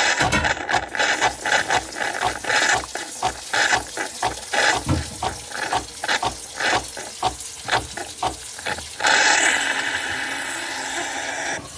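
Nespresso Lattissima Pro espresso machine running a drink cycle: its pump pulses several times a second, then about three-quarters of the way in it turns to a louder steady hiss that drops off near the end.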